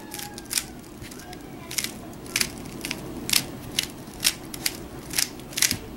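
Aolong v2 3x3 speed cube being turned through a G perm algorithm: a string of sharp plastic clicks, roughly two a second and unevenly spaced, one for each layer turn.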